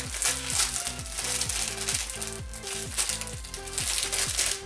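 Clear plastic wrapper crinkling as a squishy toy inside it is squeezed and handled, over background music with a quick, steady beat.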